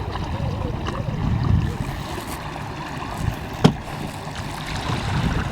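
Small boat moving on a lake: a steady rush of water and wind with a low rumble, and one sharp knock about two-thirds of the way in.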